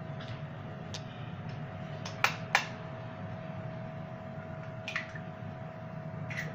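An egg tapped sharply twice against the rim of a glazed clay dish to crack it, followed by fainter clicks of shell and hands at the dish. A steady low hum runs underneath.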